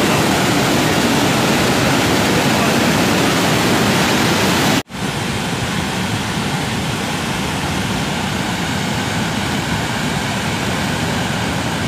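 Muddy flash-flood water rushing in a steady, loud torrent. A little under five seconds in it cuts out for an instant, then goes on slightly quieter.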